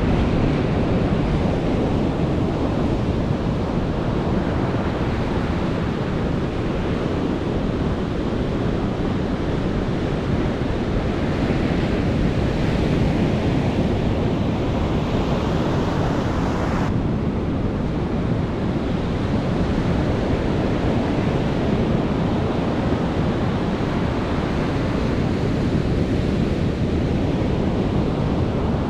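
Ocean surf breaking on a beach: a steady rushing wash that swells and eases slowly, with wind buffeting the microphone.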